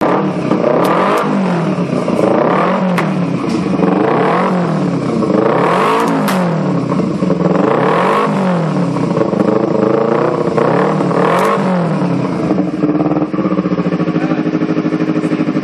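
Kawasaki Ninja 250R's parallel-twin engine revved again and again through a GP Performance aftermarket exhaust. Each blip rises and falls in pitch, about every second and a half, with a few sharp cracks. Near the end it settles into a steady idle.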